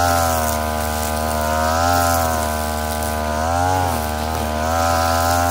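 Two-stroke engine of a STIHL FR3001 backpack brushcutter running at high speed while its nylon trimmer line cuts grass. The pitch sways as the line is swung through the grass, with a deeper dip a little past the middle.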